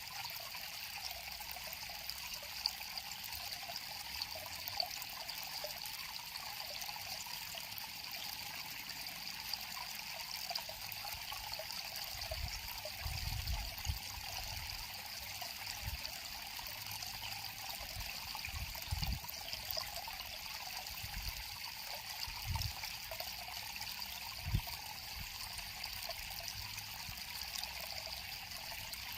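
Small river or stream flowing and trickling steadily over stones, with a few brief low thumps in the second half.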